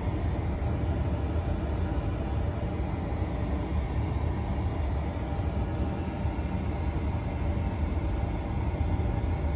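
Steady low rumble with a faint even hum: the background noise of a Boeing 747-8 flight simulator cockpit.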